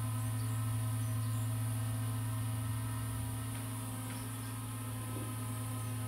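Multirotor camera drone's motors and propellers giving a steady, even hum with a buzzing overtone and a slight pulsing beat.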